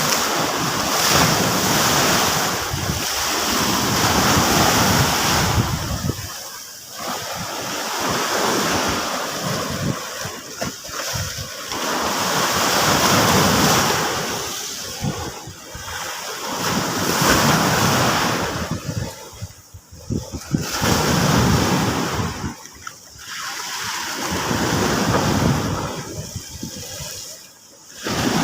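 Sea waves breaking and washing up the beach, one surge after another every three to five seconds, each swell of rushing water fading before the next arrives.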